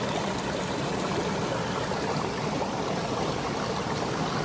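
Steady rush of flowing stream water, even and unbroken.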